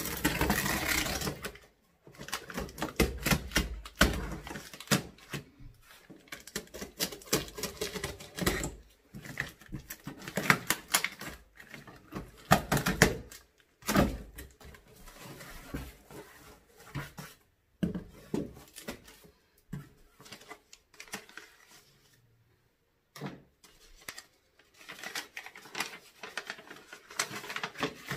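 Packing tape on a large cardboard box being slit with a small cutter and the flaps pulled open: an uneven run of scraping, crackling and clicks, with paper rustling near the end.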